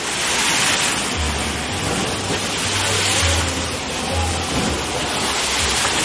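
Giant wave pool's machine-made waves crashing and splashing against the pool wall, a steady rush of water that swells in surges every two to three seconds.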